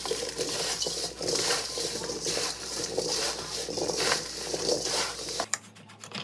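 Cubes of Korean radish tossed by hand with sea salt in a stainless steel bowl: a continuous rustling clatter of many small knocks of radish against steel and against each other. It stops suddenly near the end.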